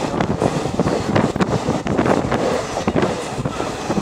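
Passenger train running along the track: a steady rumble with irregular clatter of wheels on rails, heard from inside the carriage.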